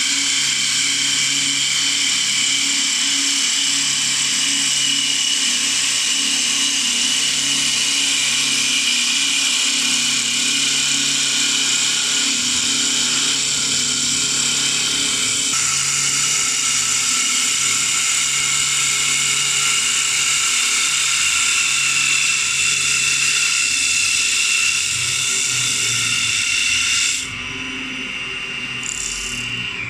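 Three-axis CNC wood lathe turning three wooden balusters at once: a steady high whine from the spindles and cutters over the hiss of wood being cut away, with a low pulsing hum beneath. The sound drops sharply about three seconds before the end.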